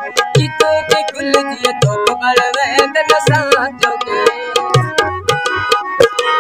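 Tabla and harmonium playing an instrumental passage of a Punjabi folk song: quick tabla strokes with a deep bass-drum thump about every second and a half, under the harmonium's held melody notes.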